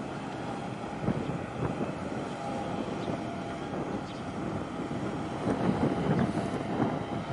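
Steady low engine rumble of harbour shipping, with wind gusting on the microphone and a faint steady hum. The gusts are strongest a little past halfway.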